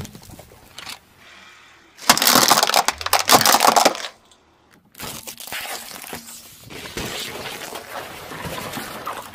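A car tyre rolls over and crushes objects one after another, among them a bundle of coloured pencils and a watermelon. There is a loud crunching and cracking burst about two seconds in. From about five seconds on comes a longer stretch of dense crackling and crushing.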